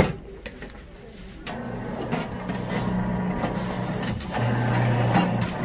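One sharp knock of a knife chopping sugar cane on the board at the start. About a second and a half in, an electric sugar cane juicer press starts running: a steady motor hum with crackling as a cane stalk is fed through its rollers and crushed.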